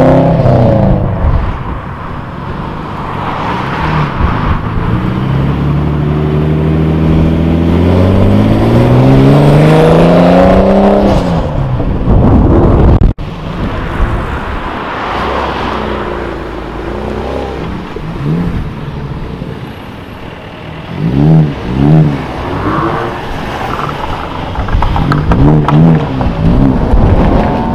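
Subaru Impreza's flat-four engine accelerating hard, its pitch climbing steadily for several seconds. After a sudden cut, another car's engine is revved in several short blips, each rising and falling quickly.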